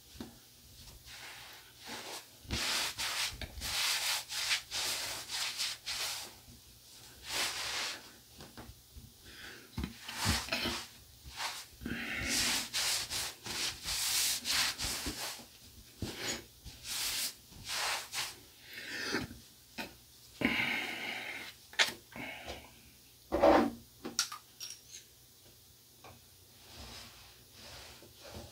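Terrycloth towel rubbing over skin and stubble, drying the face and head after a wet shave. It goes in quick, irregular strokes with short pauses between them and grows quieter near the end.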